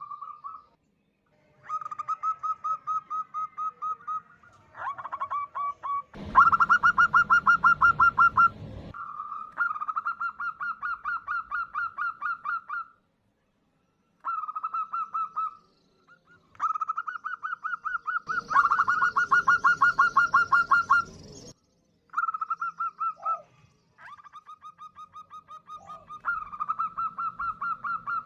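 Female zebra dove (perkutut) calling in repeated bursts of rapid, evenly pulsed cooing notes, about six or seven a second, each burst lasting one to three seconds with short pauses between. Two of the bursts are louder and have a rough, noisy edge.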